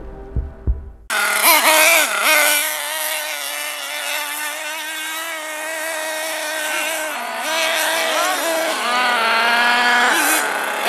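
A low pulsing intro beat cuts off about a second in, giving way to a nitro-powered 1/8-scale RC truggy's small glow engine running at high revs, its high-pitched whine rising and falling as the throttle is blipped and released during hard driving.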